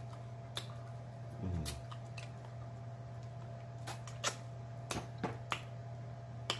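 Eating sounds as turkey wing meat is sucked and gnawed off the bone: sharp wet lip smacks and mouth clicks, about nine scattered through, with a short hummed "mm" about one and a half seconds in. A steady low hum runs underneath.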